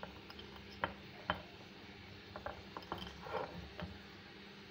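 A spoon clicking and tapping against spice containers, with the sharpest clicks about a second in and a short scrape a little past three seconds, as spice is scooped out. A faint steady hum runs underneath.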